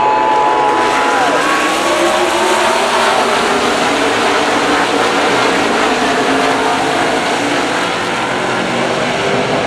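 A field of NASCAR Sprint Cup stock cars with pushrod V8 engines accelerating down the front straight on a restart, the engines overlapping into one loud, steady noise. One car's engine note drops away as it passes, about a second in.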